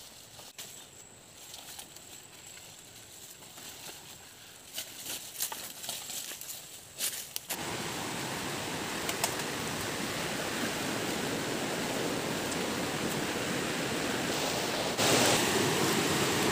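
Foliage rustling and crackling, with scattered snaps, as large leaves are handled and pulled. About halfway through, a steady rush of river water takes over, and it grows louder near the end.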